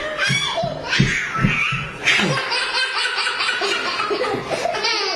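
A baby laughing heartily, with other laughter alongside, in a run of short rhythmic ha-ha pulses through the first couple of seconds.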